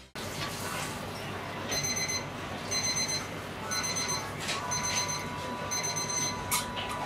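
Electronic alarm beeping: a high-pitched beep about once a second, five times, over a steady background hum. A faint steady tone joins about two-thirds of the way in.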